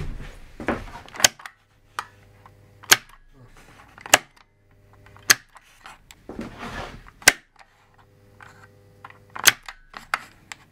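A series of about six sharp clicks, a second or two apart, as the momentary start/stop push-button switch and the CJX2 contactor it controls are operated. There is a faint steady hum between some of the clicks.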